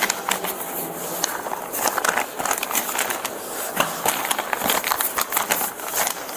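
Close rustling and crackling handling noise, dense with small clicks and knocks, as clothing, bags and gear are moved against the microphone.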